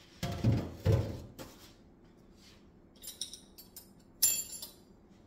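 Kitchenware being handled: two dull knocks about a second apart, then a few light clicks and a ringing clink of a utensil striking a dish, as batter is scraped out for the pancakes.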